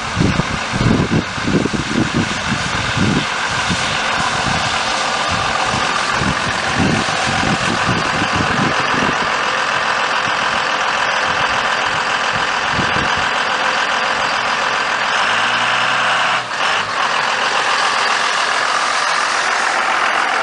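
Dodge Ram pickup truck engine running as the truck creeps through slush and standing meltwater on the ice, with a steady hiss throughout. Low rumbling thumps come and go in the first several seconds.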